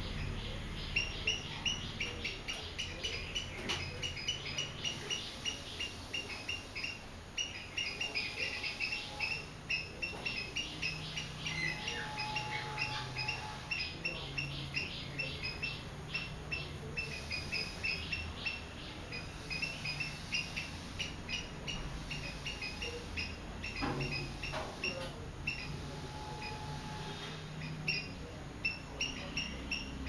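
Swallows twittering: quick runs of high, clipped chirps that carry on throughout, thinning out and picking up again.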